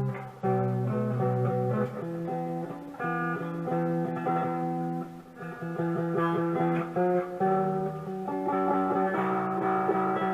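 Electric guitar played through an amplifier with a little drive. It is on the neck pickup, a Fender '65 reissue, and plays a run of held single notes and chords that change every second or so.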